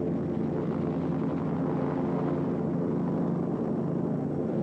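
Lockheed AH-56 Cheyenne compound helicopter hovering, its rotor and engine making a steady drone with a hum of steady tones.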